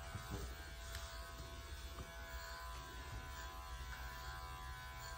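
Electric dog grooming clippers running with a faint, steady buzz as they are drawn over a dog's back.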